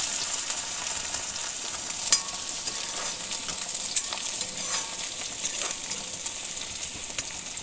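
Sliced onions sizzling in hot oil in a black wok while a metal spatula stirs them, with a few sharp clicks of the spatula against the pan. The onions are frying until they turn a little red.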